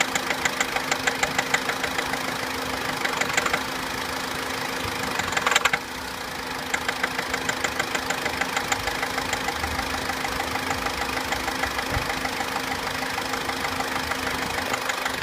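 Opel Corsa C engine idling with a rhythmic tapping or rattling noise, about five ticks a second, fading and returning. Brief louder rattles come about 3 seconds in and again about 5.5 seconds in.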